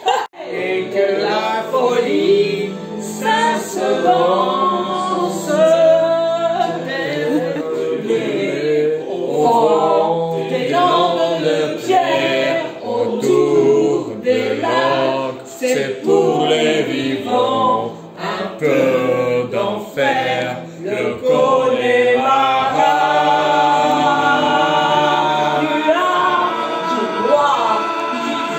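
A song with several singing voices over a bass line, turning to longer held chords a few seconds before the end.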